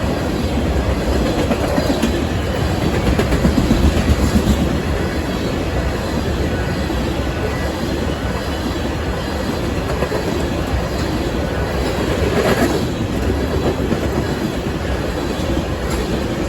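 Freight train of ethanol tank cars rolling past at speed, a steady loud rumble of wheels with clickety-clack over the rail joints.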